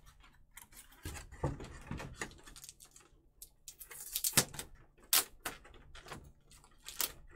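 Plastic statue parts being handled and set down on a table: irregular light clicks and knocks with some rustling, the sharpest two about four and five seconds in.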